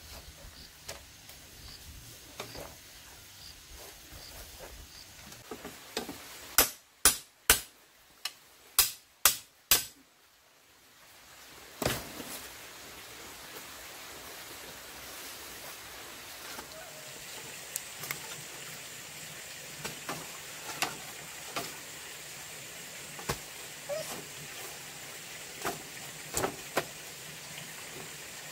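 A quick run of about seven sharp knocks over some three seconds, then a single knock about two seconds later, over a steady hiss with scattered faint clicks.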